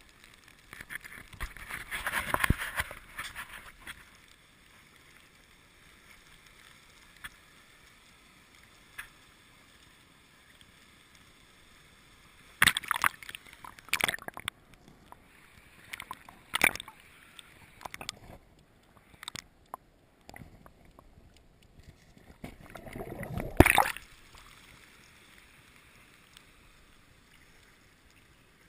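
Water splashing and sloshing as a dip net is worked through a stream and the camera goes under and comes back up. There are three bouts of it, the loudest just before the end, each made of short slaps and splashes, with quieter stretches of faint water hiss between them.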